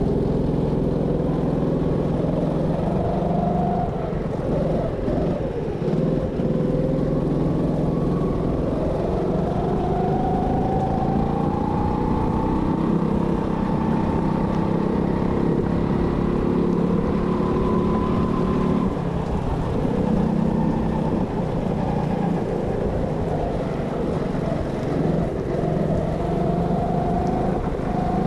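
Go-kart engine running at varying throttle, its pitch rising steadily through a long acceleration, dropping off about two-thirds of the way in, then climbing again near the end.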